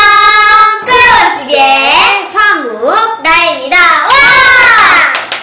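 Two children singing a loud, sing-song greeting together, their voices gliding up and down in long drawn-out notes.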